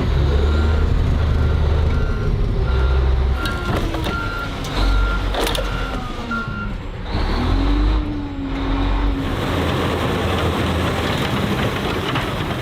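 Heavy truck's backup alarm beeping about twice a second over a steady diesel engine rumble; the beeping stops a little past halfway while the engine keeps running.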